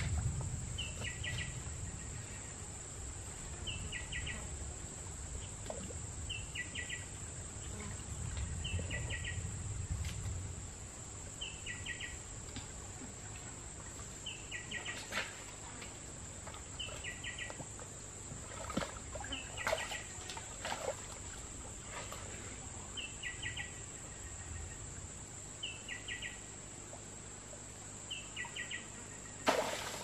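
Rainforest ambience: a steady high-pitched insect drone, with a short chirping call repeating every two to three seconds. Scattered clicks and light splashes in the middle stretch as hands move stones in a shallow stream.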